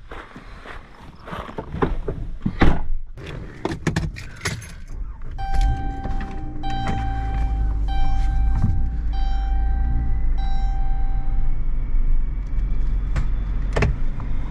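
Keys jangling and rattling clicks in a minivan. Then the engine starts and runs while a warning chime sounds five times, and the engine keeps running with a few sharp clicks near the end.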